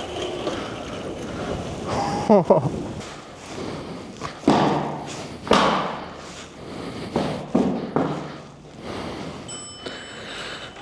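Sur Ron electric dirt bike jolting through deep snow: a series of dull thuds and knocks, with a low steady motor hum through the middle stretch.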